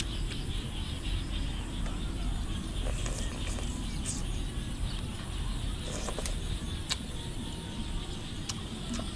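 Eating sounds: a metal spoon clicking now and then against a ceramic bowl, with chewing, over a steady low rumble.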